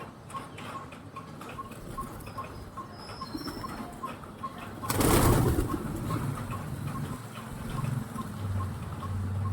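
Pigeons cooing low, with a brief loud flutter of wings about five seconds in. A faint, even ticking runs underneath at about three ticks a second.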